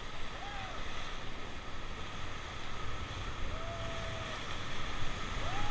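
Whitewater rapids on the Ganges rushing around an inflatable raft, a steady roar of turbulent water mixed with wind buffeting the microphone.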